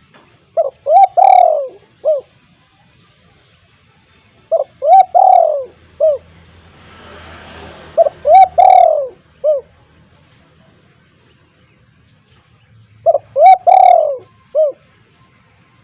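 Spotted dove cooing its song: four phrases a few seconds apart, each a quick run of short coos rising to one longer, louder drawn-out coo, then a single short coo after it.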